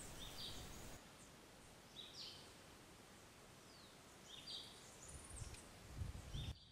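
Faint outdoor background with birds calling: short chirps and whistled notes repeated every second or two. A couple of soft low thumps come near the end.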